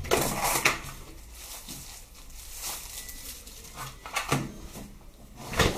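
Paper leaflets and a thin plastic sleeve rustling and a cardboard box being handled while a tablet is unpacked, with a loud knock near the end.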